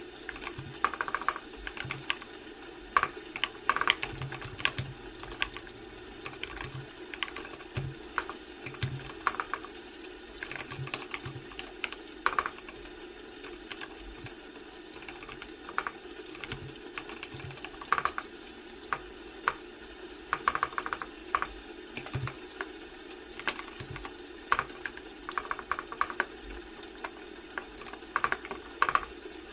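Typing on a computer keyboard: irregular runs of key clicks with short pauses between them, over a steady low background noise.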